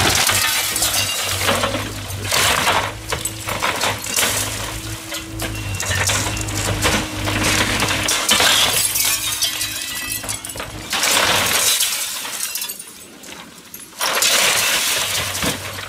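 Excavator bucket crushing and tearing down a glass-windowed porch: window glass shattering, with wood and metal frames cracking and collapsing in repeated crashes, and the excavator's engine running underneath. The crashing dies down about twelve seconds in, then another loud burst of breaking follows near the end.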